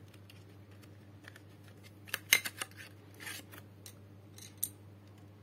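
Wooden colour pencils clicking and clacking against each other, their cardboard box and a hard stone floor as they are taken out of the box and handled. A quick cluster of sharp clacks comes about two seconds in, with scattered lighter clicks and rustles around it.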